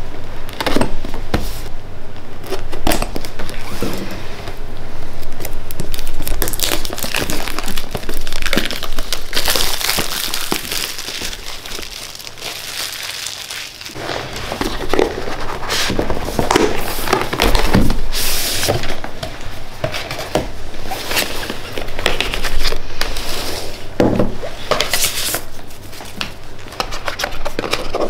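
Cardboard retail box being cut open with a knife and unpacked: crinkling and rustling of packaging, with many scattered clicks and knocks as the box and its contents are handled.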